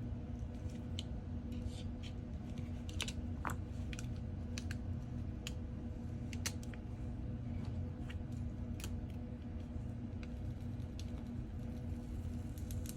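Scattered light clicks and ticks of small hand tools working on an iPhone 14's internal parts, over a steady low hum.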